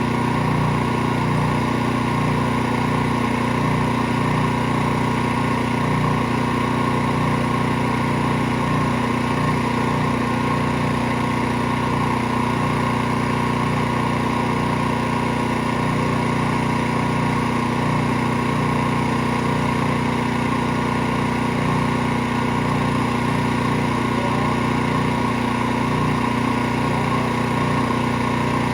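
Pressure washer running steadily, a continuous unchanging machine hum.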